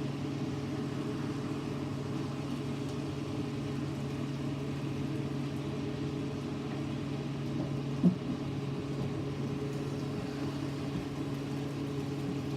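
Steady low hum of a running fan or small motor, with a single sharp knock about eight seconds in.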